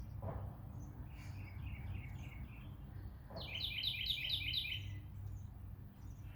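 Small birds chirping: two runs of quick repeated chirps, the louder run of about six notes about halfway through, over a steady low hum.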